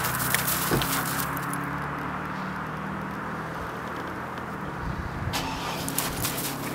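German shorthaired pointer digging and pawing at crusty snow, scraping and crunching, then a lull of a few seconds before the crunching starts again near the end. A steady low hum runs underneath.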